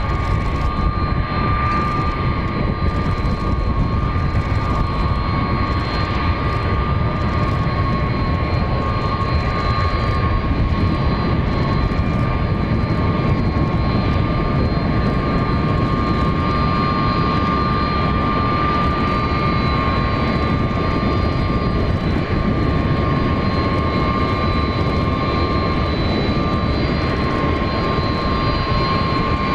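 The General Electric CF6-50 turbofans of an MD-10-30F jet freighter running at low taxi power as it taxis. A steady rumble carries a high engine whine held on two steady pitches.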